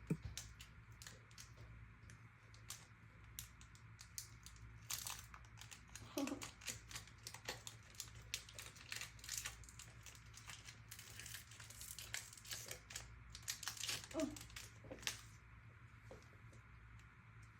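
Foil Pokémon trading-card booster pack wrapper crinkling and being torn open by hand, an irregular run of crackles.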